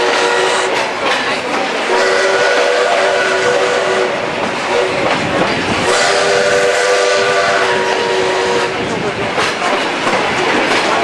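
Passenger train rolling along with its wheels clicking over the rail joints, while the steam locomotive's whistle blows several steady tones at once in long blasts: one ending about a second in, another starting about two seconds in, and a third starting about six seconds in, each lasting about a second and a half.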